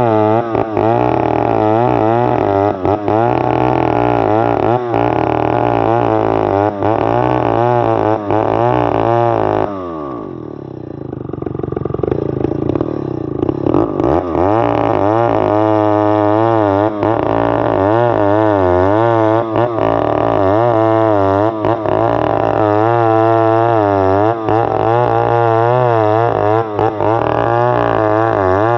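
Stihl 070 two-stroke chainsaw running hard while cutting a log into planks, its pitch wavering up and down about twice a second. About ten seconds in the engine note drops lower and quieter for a few seconds, then climbs back up to full cutting speed.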